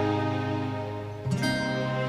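Instrumental introduction of a sad Egyptian pop song: sustained plucked-string and keyboard notes, with a new chord struck about a second in.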